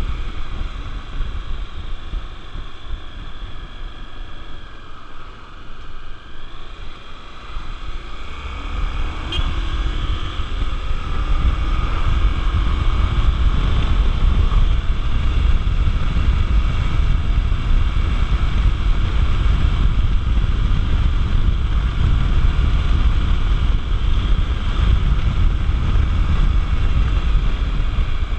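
Honda XR 250 Tornado's single-cylinder four-stroke engine running under way, with heavy wind buffeting on the microphone. About nine seconds in the engine pitch rises as it accelerates, and the engine and wind grow louder and stay that way.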